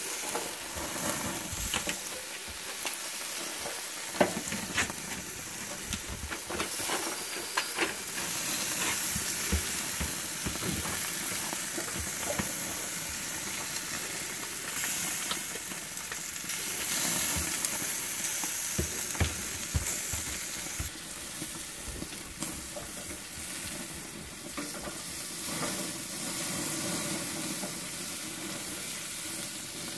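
Sausages sizzling on a grill grate, a steady hiss, with scattered clicks and scrapes of metal tongs turning them.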